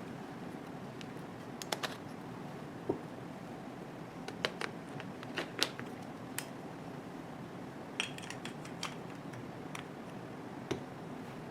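Scattered sharp clicks and clacks of a camera being handled, coming singly and in small clusters at irregular intervals over a steady low hiss.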